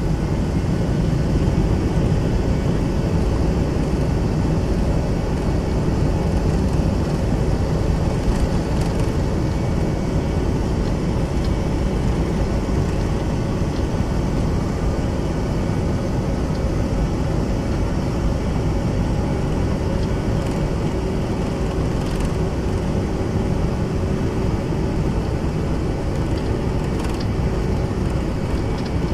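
Boeing 757-200's Pratt & Whitney PW2000-series turbofans running at takeoff power, heard inside the cabin over the wing as a loud, steady roar with the rumble of the rolling airliner on the runway. It swells slightly in the first second, then holds steady, with a few faint ticks.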